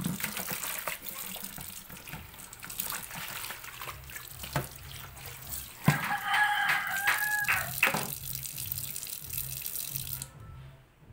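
Kitchen tap running and splashing into the sink as cassava roots are washed under it; the water stops about a second before the end. Around the middle a rooster crows once, a call of about two seconds, just after a sharp knock.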